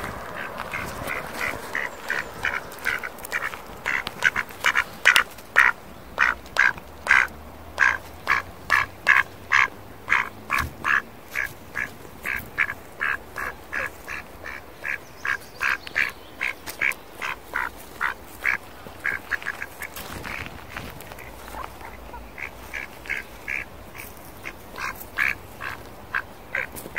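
Mallard duck quacking over and over in short calls, about two a second, with a break of a couple of seconds about three-quarters of the way through before the quacking resumes.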